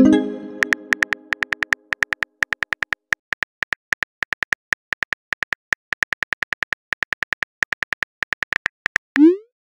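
Texting-app sound effects: a message-sent chime rings out at the start and fades over about two seconds. Rapid keyboard typing clicks follow, several a second, and a short rising whoosh near the end marks the next message being sent.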